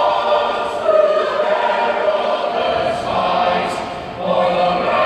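A choir singing in long held notes across a large open ballpark, the voices carried at a steady, loud level.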